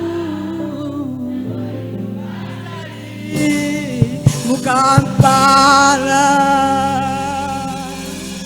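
Gospel worship music: steady sustained keyboard chords, joined about three seconds in by louder singing on long, wavering held notes, with a few sharp knocks, then easing off near the end.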